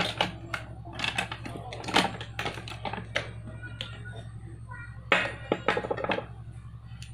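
Irregular clicks and clatter of makeup items being handled and rummaged through, over a steady low hum.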